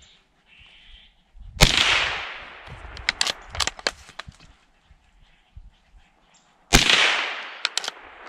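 Two gunshots fired at squirrels in the trees, about five seconds apart, each with a long echoing tail. Lighter clicks and snaps come between them.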